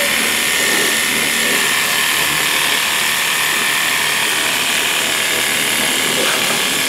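WORX Hydroshot cordless pressure washer running: a steady motor whine over the hiss of the water jet spraying into an engine bay.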